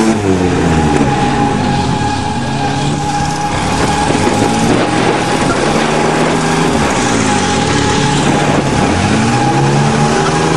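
Engines of a motorhome and a Nissan pickup revving as they spin donuts. The pitch falls and climbs again several times, with a thin steady whine underneath.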